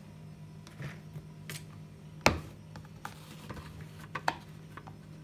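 Objects being handled on a kitchen counter: a few light clicks and knocks and one sharp knock about two seconds in, over a steady low hum.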